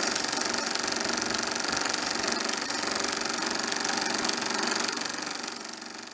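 A motorcycle engine running steadily with a fast, even pulse, fading out over the last second.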